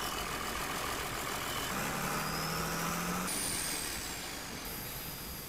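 Diesel shunting locomotive engine idling steadily, with a low hum joining about two seconds in for a second or so.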